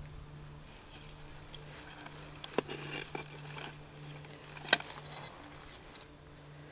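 Light rustling of artificial flowers and plastic flower pots being handled and set down at a headstone, with a few sharp clicks, the loudest about two-thirds of the way through.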